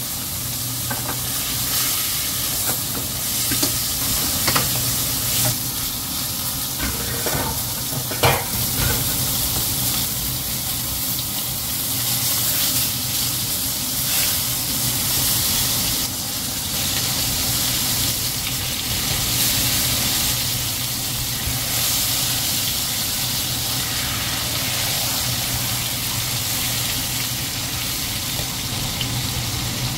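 Top blade (flat iron) beef steak and garlic sizzling steadily in a frying pan, with a few sharp clicks about seven to eight seconds in and a steady low hum underneath.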